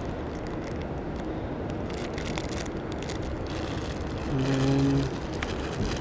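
Steady hum of a moving escalator and mall ambience, with plastic toy packaging crinkling in the hands. A man's voice makes a short drawn-out 'mmm'-like sound about four and a half seconds in.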